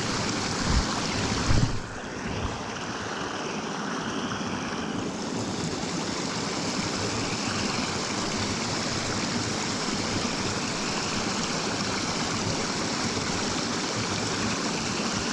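Small stream running, a steady rush of water, with a few low knocks in the first two seconds.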